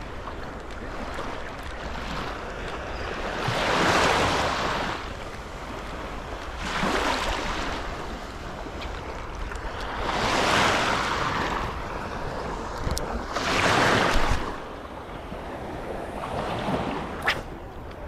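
Small waves washing in shallow sea water, swelling about every three seconds, with wind on the microphone. A single sharp click comes near the end.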